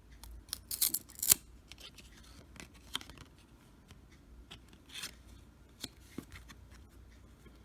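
Trading cards being handled and swapped over: crisp card-on-card slides and snaps, a quick cluster of sharp ones about a second in, then a few softer scattered flicks.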